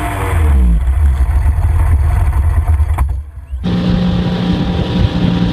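Wind buffeting and engine rumble from a small yellow inflatable boat driving hard through spray. After a sudden cut about three and a half seconds in, a Nautique tow boat's engine runs at a steady pitch over the rush of water and wake while it pulls two inner tubes.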